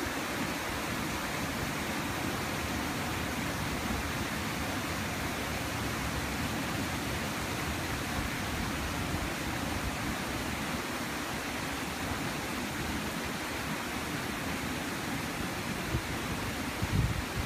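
Stream water running steadily, an even rushing sound; a low rumble starts near the end.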